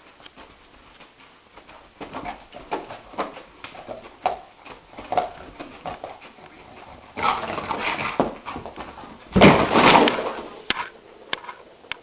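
A dog whimpering and yipping in a run of short sounds, with a louder noisy stretch about nine to ten seconds in.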